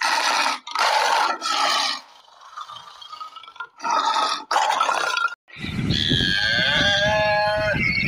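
A tiger growling in several short, rough bursts. Then, after a cut, a cow moos once in a long call over a low rumble of field noise.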